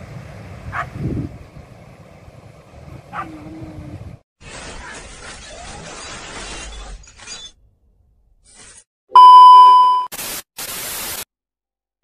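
Outdoor field sound with a few short falling calls, then an intro sound effect: a rushing noise, a loud electronic beep about nine seconds in, and two brief bursts of static.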